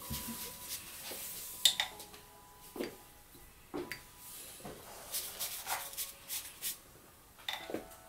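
Irregular light clinks and taps of a painting brush against ceramic ink and colour dishes, with soft brushing and rustling of the brush on paper.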